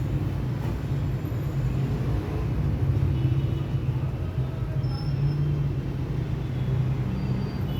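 Toyota Prado's engine idling steadily, a low even hum.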